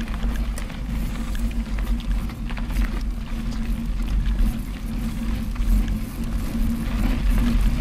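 Riding noise from a mountain bike on a dirt track, picked up by a camera mounted on the handlebar: a steady low rumble of wind on the microphone and knobby tyres rolling over packed dirt and gravel, with scattered rattles and clicks from the bike. It grows a little louder over the last couple of seconds.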